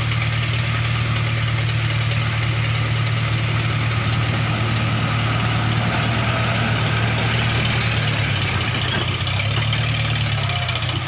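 A vehicle engine idling steadily with an even low drone.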